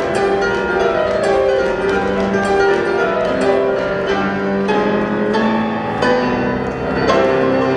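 Instrumental music accompanying a stage dance: sustained melodic notes with a piano-like timbre, punctuated by short percussive hits.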